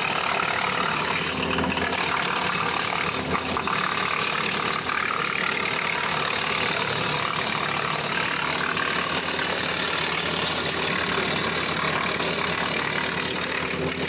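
Subcompact tractor engine running steadily, driving a PTO wood chipper's flywheels: a constant mechanical drone with a steady engine hum and no clear load changes.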